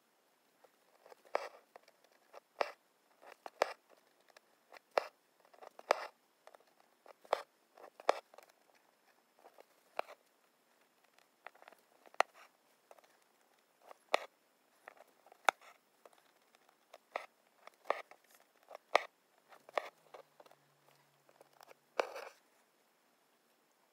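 A hand-embroidery needle and thread working through fabric held taut in an embroidery hoop: irregular sharp taps as the needle pierces the fabric and short rasps as the thread is drawn through, about one a second.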